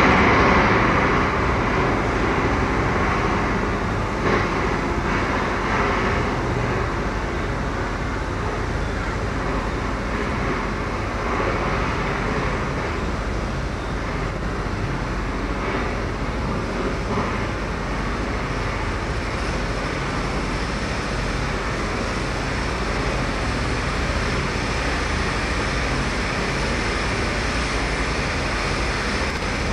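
Steady outdoor rushing noise of wind and distant city traffic during a tornado, even throughout with no single event standing out.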